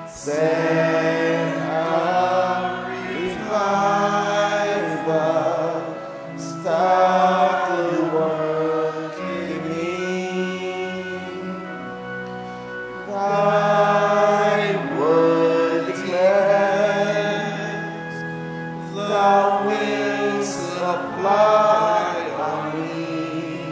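Church congregation singing a hymn together in phrases of a few seconds, over held accompaniment chords.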